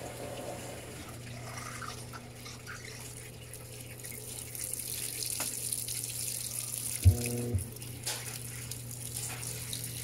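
Panasonic top-load washing machine filling: water pours steadily into the tub onto the wet load, the splashing growing brighter about halfway through. About seven seconds in the machine gives two short humming thumps, the loudest sound here.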